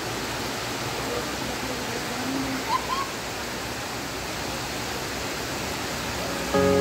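Heavy rain falling steadily, a constant hiss, with a few faint distant shouts about two and a half seconds in. Music begins just before the end.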